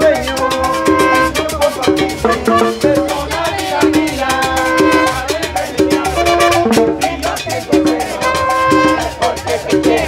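Salsa-style Latin dance music with a steady beat and percussion, and a riff of held chords that comes back about every two seconds.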